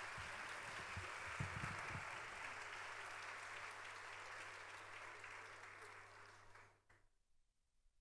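Audience applauding, a dense crackle of clapping over a low hum, with a few low thumps in the first two seconds; it fades and cuts off about seven seconds in.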